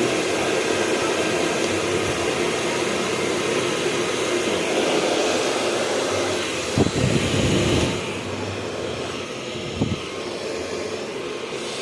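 Han River hair dryer blowing steadily on its high setting. About eight seconds in its level drops somewhat, and there are two brief low thumps, one just before and one just after.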